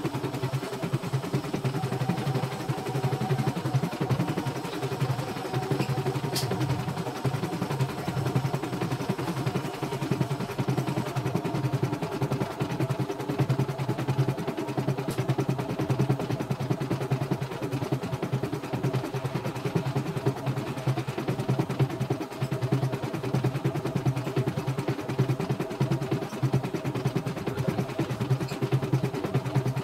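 CNY E960 computerized embroidery machine stitching a design, its needle running at a fast, even rate over a steady motor hum. A single light click sounds about six seconds in.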